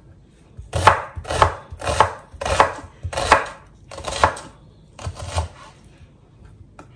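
Chef's knife slicing an onion on a wooden cutting board: about seven separate cuts, each ending in a knock on the board, roughly one every half second to a second, slowing towards the end and stopping a little after five seconds in.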